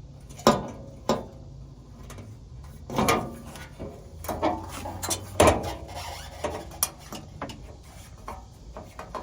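Hands working on car parts: several sharp knocks and clatters, loudest about half a second, one second and five and a half seconds in, with rubbing and scraping between.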